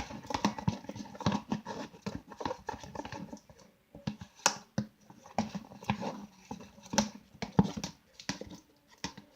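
Glue-and-activator slime being stirred in a container, giving a run of irregular sticky clicks, squelches and taps as it starts to thicken.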